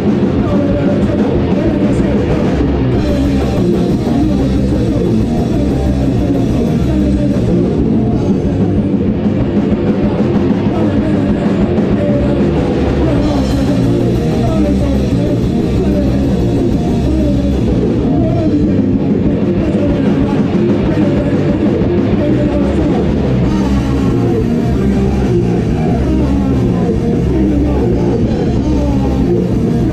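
A rock band playing loud, live in a small room: electric guitar and drum kit, with a vocalist singing into a microphone.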